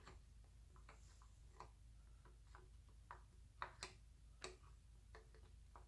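Faint, irregular small metal clicks and taps as a water pump is set against the engine block and its bolts are started by hand, with two sharper taps about two-thirds of the way through.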